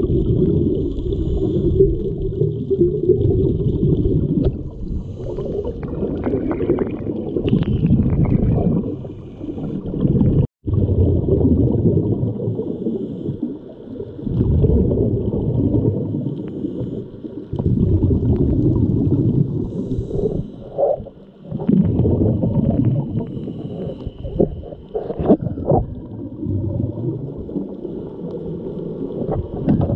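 Muffled underwater rumble and gurgling of water moving around a GoPro 7 as the snorkeler swims, deep and dull, with a faint steady high whine above it. The sound cuts out for a split second about ten seconds in.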